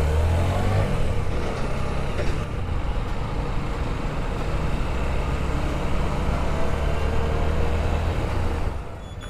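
Single-cylinder engine of a TVS Apache motorcycle running as it rides off and moves through traffic, with wind and road noise over it. The engine hum is strongest in the first second as it pulls away, then holds steady.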